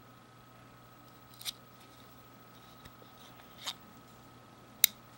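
Leatherman Core multitool being handled: three short metal clicks, the last near the end the sharpest and loudest, as its folding tools are worked.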